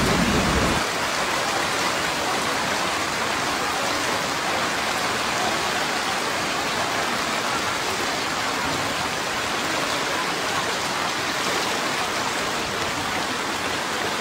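Heavy rain falling on a flooded street, a steady, even hiss. In the first second a deeper rushing of floodwater cuts off suddenly.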